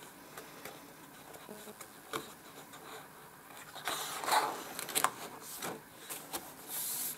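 A paper page of a spiral-bound colouring book being lifted and turned by hand: a soft tick about two seconds in, then paper rustling and sliding with a few sharp ticks through the second half, ending in a brief hiss.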